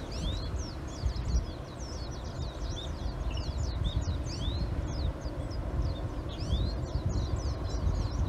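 Many small birds chirping and calling together, a dense run of quick overlapping chirps that sweep up and down in pitch, over a steady low rumble.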